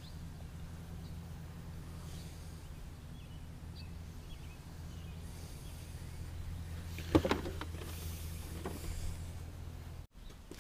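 An engine idling with a steady low hum, with a single sharp knock about seven seconds in. The hum briefly cuts out near the end.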